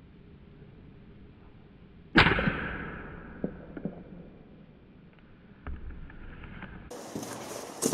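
A single air rifle shot about two seconds in: a sharp crack with a ringing tail that fades over a couple of seconds, followed by a few light clicks. A louder rustling noise sets in near the end.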